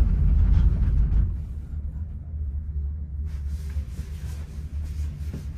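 Cable car cabin descending: a steady low rumble and hum, loudest for the first second or so.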